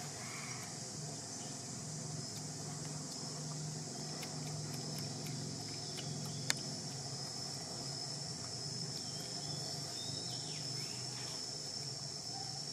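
Insects chirring in one steady high-pitched tone over outdoor background noise, growing stronger about four seconds in, with a single sharp click about six and a half seconds in.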